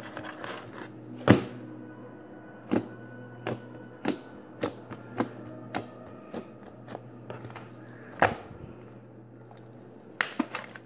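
Slime being squeezed and pressed by hand, giving irregular sharp pops and clicks, the loudest about a second in and again near 8 s. A steady low hum and faint held tones run underneath.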